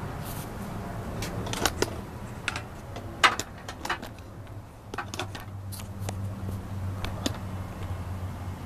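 A series of irregular light clicks and clinks, the sharpest about three seconds in, over a low steady hum.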